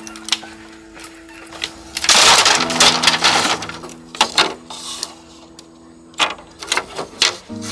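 Bamboo poles and split bamboo strips clattering and knocking as they are handled and laid onto a bamboo bed frame, with a loud rattling clatter about two seconds in and single hollow knocks after it. Soft background music with held notes runs underneath.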